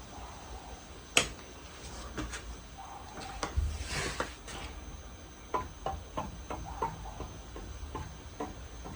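Casablanca Spirit of Saturn ceiling fan running with a steady low hum, overlaid by light clicks and knocks: one sharp click about a second in, a brief swish around the middle, then a string of clicks a few times a second.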